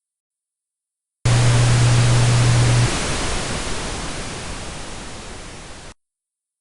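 A loud burst of static-like noise with a steady low hum under its first second and a half, fading away over about three seconds and cutting off abruptly.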